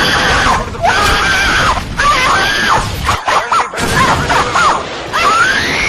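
Loud, high-pitched screaming, a string of rising and falling wails with a short break a little past three seconds in, over a noisy backing.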